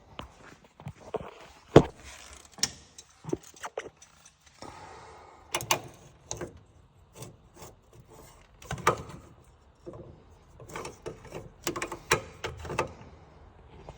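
Irregular clicks, knocks and scrapes of hand tools and metal parts being handled on an opened engine. The loudest knock comes about two seconds in.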